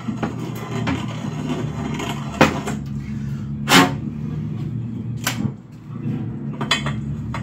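Four sharp knocks from steel universal joints and steel tubing being handled on a steel welding table. The loudest knock comes about halfway through, over a steady low hum.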